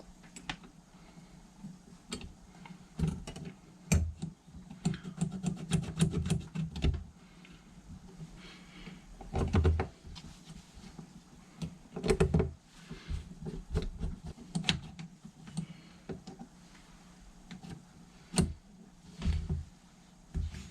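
Small metal and plastic carburettor parts being handled and fitted: irregular clicks and light taps, with a few louder knocks, as a choke slider bar is worked into place on a bank of Keihin motorcycle carburettors.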